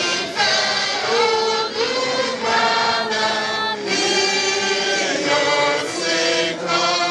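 A group of voices singing a hymn together, holding long notes that change about once a second.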